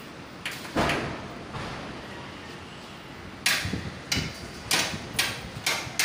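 Wrench clacking and scraping on the flare-nut connection of a split air conditioner's copper refrigerant pipes. There are two sharp clacks about a second in, then a run of about five, roughly two a second, toward the end.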